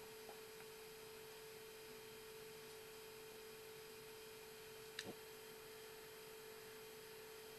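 Near silence with a faint, steady hum at a single pitch, and one faint tick about five seconds in.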